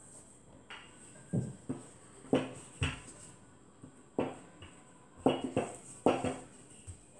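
Wooden rolling pin knocking and rolling on a plastic-covered table as a strip of dough is rolled out: a string of irregular knocks and rubs.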